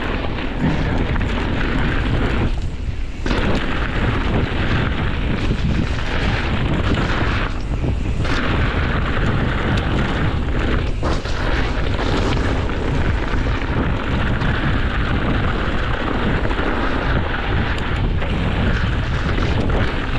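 Wind buffeting the microphone of a handlebar-mounted action camera, mixed with mountain-bike tyres rumbling over a dry dirt and leaf-litter trail at speed. The rush eases briefly twice.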